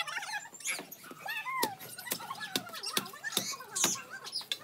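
A dog whining and yipping in short, rising and falling calls, over sharp knocks of a long-handled digging tool chopping into soil and bamboo roots.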